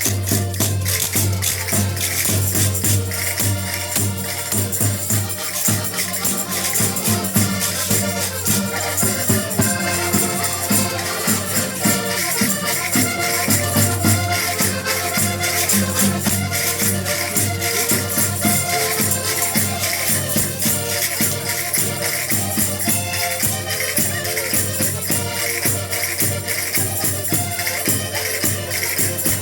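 Portuguese folk music: voices singing together over a steady, fast rattling and jingling percussion beat.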